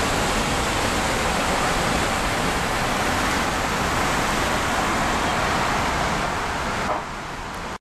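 Wind rushing over the camera's microphone as a steady, loud noise that drops off sharply near the end.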